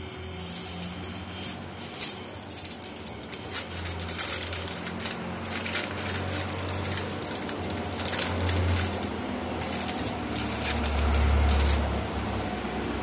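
Aluminium kitchen foil crinkling as it is pressed and folded down around the rims of disposable foam cups: a dense run of crackles with short pauses, over a low rumble that grows strongest near the end.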